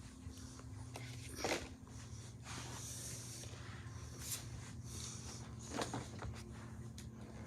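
Soft handling noises: two brief knocks or rustles, one about a second and a half in and one near six seconds, with faint hissy rustling between them, over a steady low hum.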